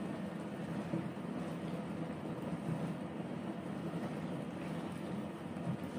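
A stir-fry of sweet potato leaves and sardines simmering in a frying pan as it is stirred with a plastic spatula, over a steady low rumble.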